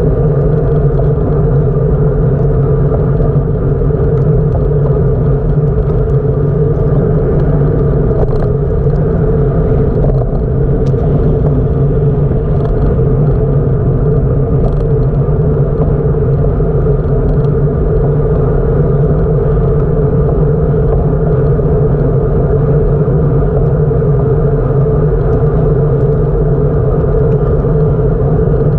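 Steady, loud rumble of wind and road noise on a camera riding along on a moving bicycle, unchanging throughout.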